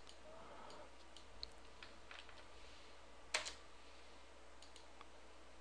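Faint clicks of a computer mouse and keyboard, scattered through, with one sharper click about three and a half seconds in.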